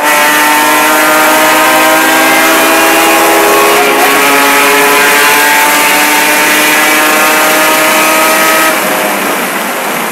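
1999 Porsche 996 Carrera race car's 3.4-litre flat-six under full throttle, heard from inside the cabin, its pitch climbing steadily. There is an upshift about four seconds in, and the engine note drops off near the end as the throttle is lifted.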